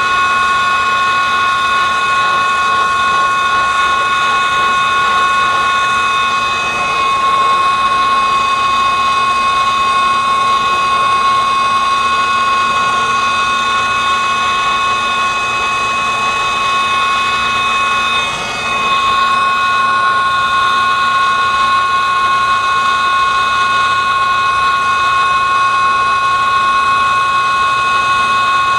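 Pressurised gas flowing with a steady high-pitched whistle of several fixed tones over a hiss, dipping briefly about 18 seconds in: nitrogen being floated through the refrigerant lines for brazing.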